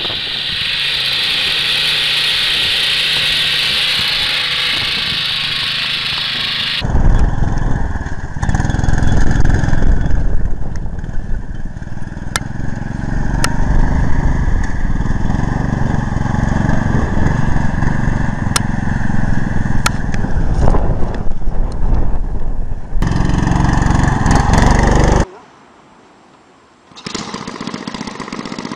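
Small petrol engines of home-built mini vehicles running, in three clips: a child-size Ferrari-style car, then a mini monster truck whose engine sounds lower and heavier, and after a brief quieter gap, a mini chopper motorcycle's engine.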